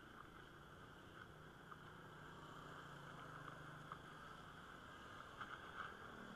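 Faint, muffled riding noise from a bicycle: a low steady hum from motorbike engines close ahead, with scattered light ticks from the bike over the concrete lane.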